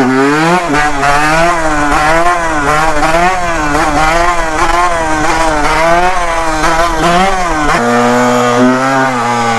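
Yamaha YZ125 single-cylinder two-stroke dirt bike engine being ridden, revving up and down about once a second under throttle. Near the end the sound changes abruptly to a steadier engine pitch.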